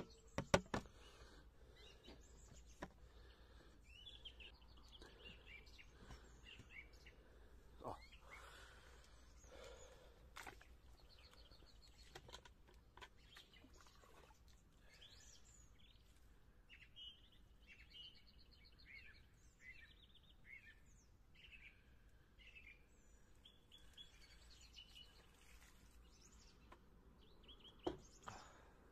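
Faint birdsong: small birds chirping and singing over and over, with a few sharp knocks, the loudest just after the start and again near the end.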